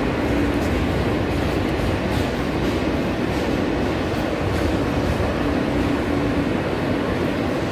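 New York City subway car running on the track, heard from inside the car: a steady rumble of wheels on rail, with a low hum that fades in and out.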